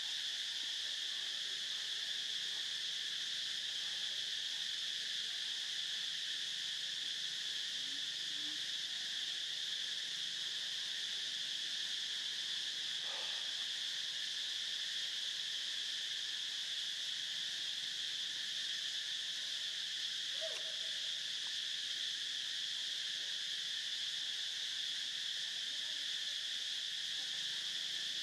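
Steady, high-pitched insect chorus, with two faint short sounds about halfway and about two-thirds in.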